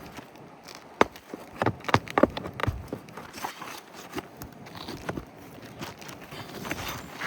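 Irregular sharp knocks, clicks and scrapes of hand tools working asphalt roof shingles and their nails: a single loud knock about a second in, then a cluster of louder knocks about two seconds in.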